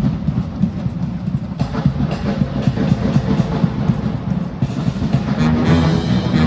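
Marching band playing: drums and percussion beat out a busy rhythm, and brass come in with held chords about five seconds in.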